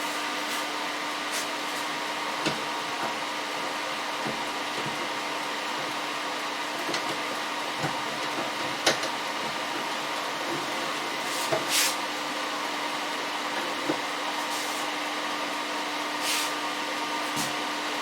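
Steady whirring hum and hiss of a running machine, fan-like, with scattered small clicks and knocks of parts being handled, the loudest a few seconds apart in the middle.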